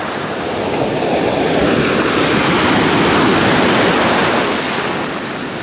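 Sea surf breaking and washing up the shore: a steady, loud rush of water and foam.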